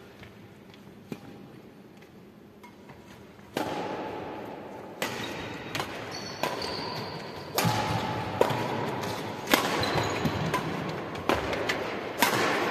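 Badminton rally on a wooden indoor court: sharp cracks of rackets striking the shuttlecock, about nine of them, echoing in a large hall, with players' footfalls and high, brief sneaker squeaks. The first three seconds or so are quiet with only a few faint clicks, then play picks up sharply.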